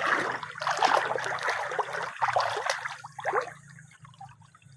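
Shallow river water trickling and splashing, dying down to a quieter trickle about three seconds in.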